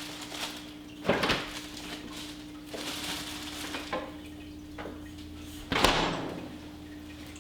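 Refrigerator door and things inside it being handled: two loud knocks, about a second in and again near six seconds, with lighter clatters between, over a steady low hum.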